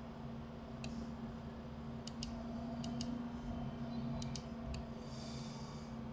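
Computer mouse clicks: about eight short sharp clicks, several coming in quick pairs, over a steady low hum.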